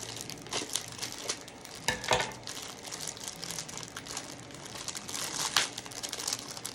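Snack wrapper being crinkled and handled as it is opened, a run of irregular crackles with louder bursts about two seconds in and again near the end.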